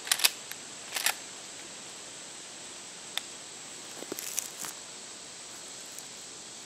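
A few short, sharp metallic clicks and a brief light clatter from handling a Winchester 94 lever-action rifle while aiming, with no shot fired. Under them runs a steady high insect drone.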